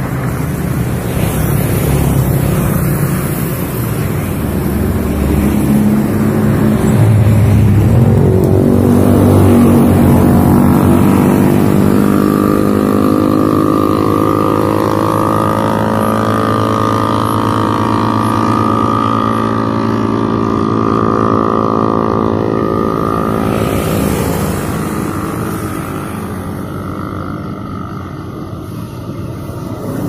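Road traffic crossing a bridge: cars driving past with tyre and engine noise, loudest about eight to ten seconds in. An engine's steady pitched hum builds through the middle and fades away a few seconds before the end.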